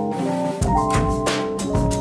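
Background instrumental music: held chords, with a drum beat and bass coming in about half a second in.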